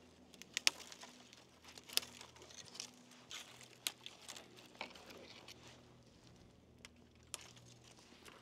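Scattered sharp clicks and knocks with light rustling and crinkling as camp-cooking gear is handled, over a faint low hum. The loudest clicks come about a second and two seconds in.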